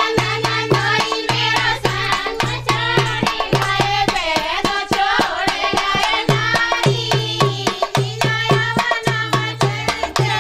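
Dehati Hindi folk dance song: hand drums keep a fast, steady beat under a wavering sung melody.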